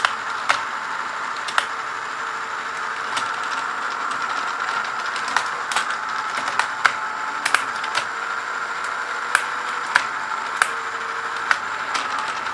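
Small electric motor of a Tandy/Radio Shack Armatron toy robot arm running steadily, driving its exposed plastic gear train, with a whine and sharp clicks from the gears at irregular intervals, roughly one a second.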